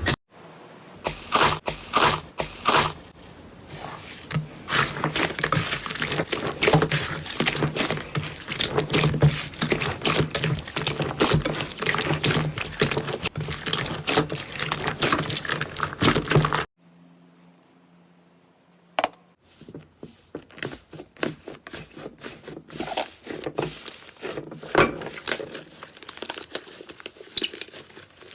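Slime being squished and pressed, giving dense runs of wet crackles and pops. The sound drops away briefly a little past the middle, then softer crackling and popping picks up again.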